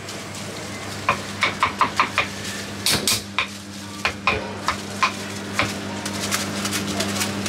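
Crinkle-cut knife slicing through a firm green fruit over a wooden chopping board: a quick run of about fifteen short, crisp cuts and taps that thins out about two thirds of the way in.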